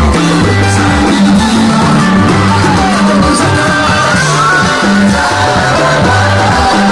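Loud music playing: a bass line stepping between notes under a melody that glides up and down, with singing.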